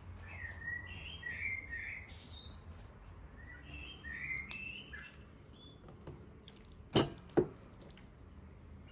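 Wet squelching and light clicks of hands rubbing marinade into a raw whole chicken on a metal tray, with small birds chirping in two spells. About seven seconds in come two sharp knocks, half a second apart, the loudest sounds.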